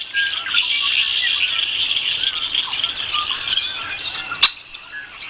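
Many birds chirping and calling at once, a dense chorus of short chirps and quick pitch glides. A single sharp click sounds about four and a half seconds in.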